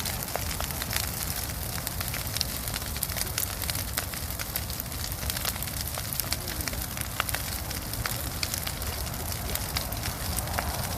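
Bonfire burning, crackling with many sharp pops over a steady hiss and low rumble.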